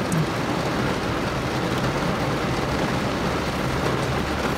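Heavy rain drumming steadily on the roof and windows of a car, heard from inside the cabin.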